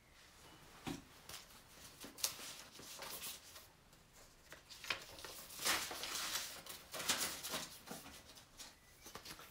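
Paper word cards being shuffled and sorted by hand: faint, irregular rustling and crinkling of paper, busiest in the middle of the stretch.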